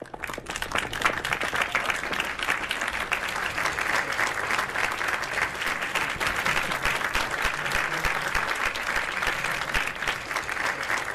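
Audience applauding, many hands clapping at once; it starts suddenly and holds steady.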